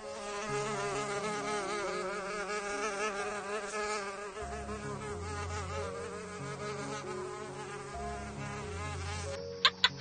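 A fly buzzing in flight, a continuous wing hum that wavers up and down in pitch.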